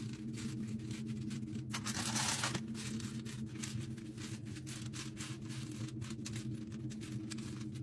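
Empty capsule shells clicking and rattling across a capsule machine's slotted loading tray as gloved hands sweep them into the holes, with a louder swishing scrape about two seconds in. A steady low hum runs underneath.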